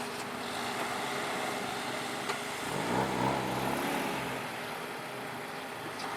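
Steady outdoor background noise, with a motor vehicle passing by about three seconds in: its engine note rises above the background for a second or two, then fades.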